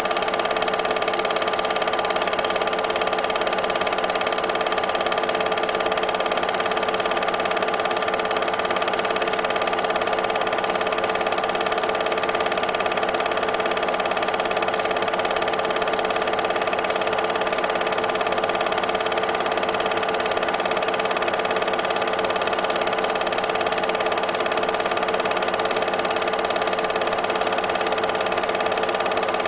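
Film projector running: a steady mechanical whir with a constant hum of several fixed tones over an even hiss.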